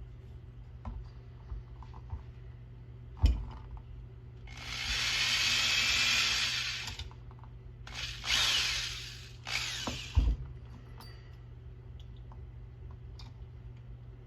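Power drill boring a pilot hole into a nylon plastic foosball ball: one run of about two and a half seconds, then two shorter runs, with a sharp knock before the first run and another after the last.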